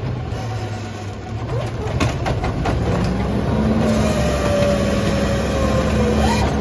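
Autocar ACX rear-loader garbage truck running, its engine note steady. A few sharp knocks come about two seconds in, and a whine slowly falls in pitch through the second half.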